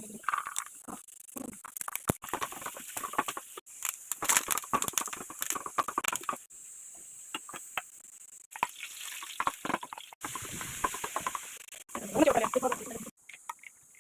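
Home-kitchen cooking sounds: utensils knocking and scraping in a pan while food is stirred, with some sizzling, heard in several short clips cut one after another.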